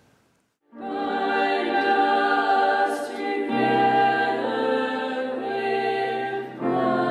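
A choir singing a closing hymn in held chords, starting about a second in; the chord changes twice, the second time after a brief dip.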